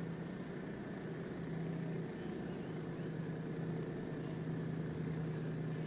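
Drag race car engine idling steadily, a constant low drone that does not change pitch.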